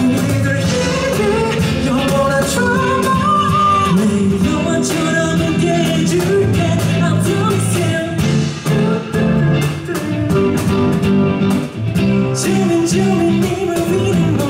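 Live band music with a singer, the beat kept by a cajon struck with the bare hands, its sharp hits running steadily under the melody.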